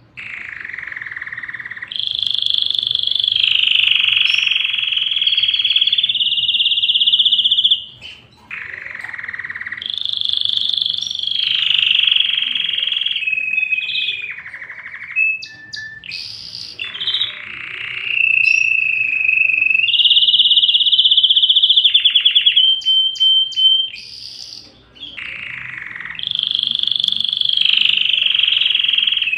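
Domestic canary singing in long phrases of fast rolling trills, each held for several seconds, with short breaks between phrases and a few quick chips around the changes.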